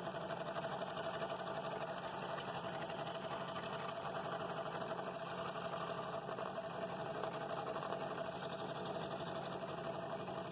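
Scroll saw running steadily, its reciprocating blade cutting a bowl ring at an angle out of a wooden blank along the pattern line.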